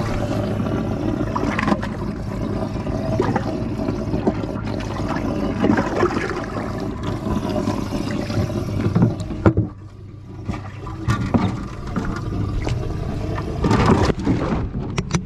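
Water gurgling and splashing over a steady low mechanical hum, with scattered knocks and scrapes. The water noise drops away briefly about two-thirds of the way through.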